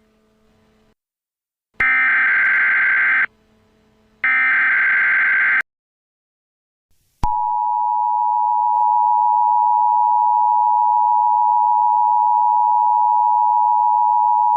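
Emergency Alert System tones: two loud buzzy digital data bursts (the SAME header) at about two and four and a half seconds in, then from about seven seconds in the steady two-tone EAS attention signal, sounding continuously.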